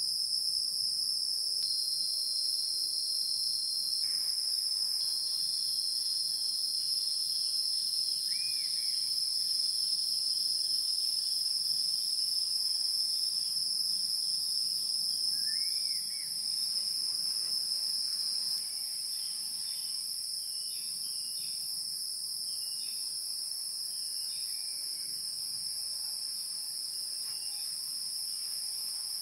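A steady, shrill chorus of insects, high-pitched and unbroken, with a couple of short chirps in the middle. It becomes slightly quieter about two-thirds of the way through.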